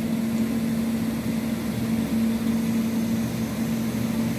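A steady low mechanical hum, like a small motor or fan running, over a faint even hiss.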